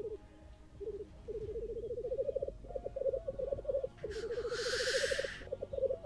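Male black grouse lekking: a run of rapid, pulsing bubbling phrases, the rookooing display song. About four seconds in, a loud hiss of more than a second, the black grouse's hissing call, cuts across the song.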